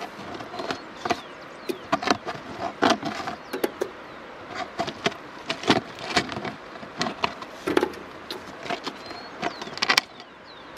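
Live freshwater prawns stirring in a wet plastic-lined container, their legs, claws and tails making irregular sharp clicks and taps against the plastic and each other, over a steady background hiss.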